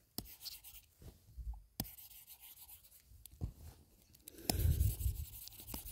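Stylus strokes and taps on a touchscreen while digitally painting: soft scratching with scattered sharp taps. A louder low rumble, like the device being handled, comes about four and a half seconds in.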